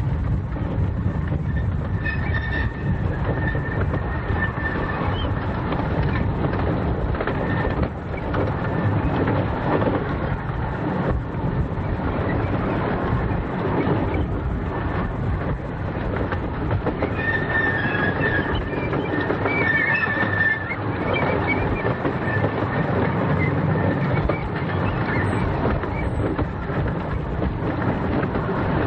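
15-inch gauge miniature railway train running along the track, its wheels rumbling and clicking over the rails. A high wheel squeal comes in briefly about two seconds in and again for a few seconds around the two-thirds mark.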